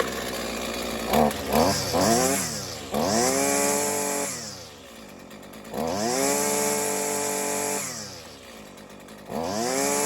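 Husqvarna 128LD string trimmer's small two-stroke engine running: a few quick throttle blips, then revved to full throttle three times, each held for a second or two and dropping back to idle between. It runs smoothly on a quality NGK spark plug that replaced a cheap Chinese plug, which had made it sputter and pop.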